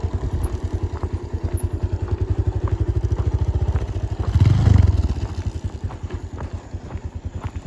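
Motorcycle engine running at low speed with a steady, even chugging pulse, and a brief burst of throttle about four seconds in. Small knocks and rattles come from the bike on rough sandy ground.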